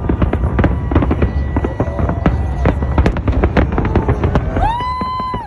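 A fireworks display going off: a rapid, continuous run of bangs and crackles. Near the end a steady high-pitched tone with overtones sounds over the bangs.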